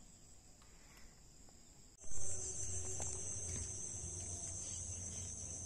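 Chorus of insects trilling steadily in a high pitch, faint at first and much louder from about two seconds in, with a low rumble underneath.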